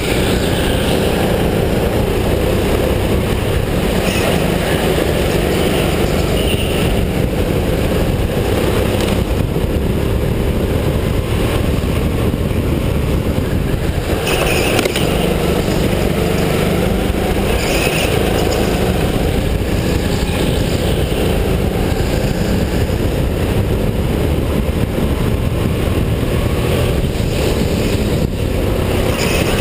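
Go-kart engine running hard at racing speed, heard from on board the kart, its pitch rising and falling again and again as it slows for corners and accelerates out of them.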